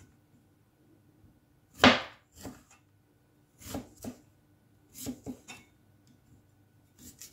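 Cleaver chopping through cassava root and striking a plastic cutting board while cutting away the bark-like peel. One loud chop comes about two seconds in, followed by several lighter cuts and knocks spread over the rest.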